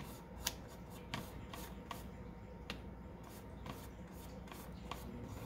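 Foam paint brush dabbing and rubbing paint onto a ribbed tin can: faint scratchy rubbing with irregular light ticks, the sharpest about half a second in.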